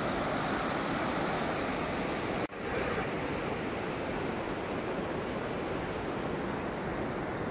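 Flood-swollen mountain river rushing: a steady wash of water noise, broken by a momentary dropout about two and a half seconds in.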